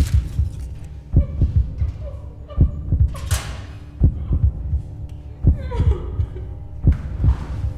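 Heartbeat sound effect: slow paired thumps, lub-dub, about every second and a half over a steady low hum, with a rushing whoosh about three seconds in.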